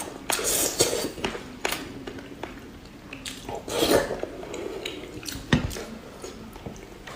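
Eating utensils clicking and knocking against a dish several times, with the loudest knocks about four and five and a half seconds in.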